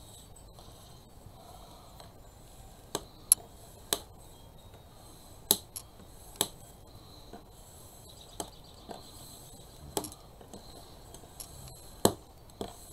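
Scissors trimming paper, then light handling of paper on a board: a handful of sharp, separate clicks and snips scattered over several seconds, with faint rustling of paper being smoothed by hand.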